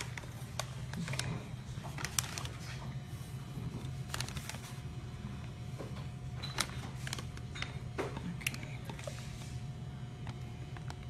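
Scattered small clicks and crinkles of a plastic zip-top bag being held open while a silicone spatula scrapes thick yogurt mixture from a metal bowl into it, over a steady low hum.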